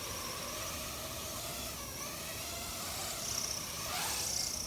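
Rotor Riot RR5 FPV racing quadcopter's brushless motors spinning with a whine whose pitch keeps wobbling up and down, then a quick rising sweep about four seconds in as it lifts off the pad. The wavering whine is the audible sign of the quad's bad oscillation.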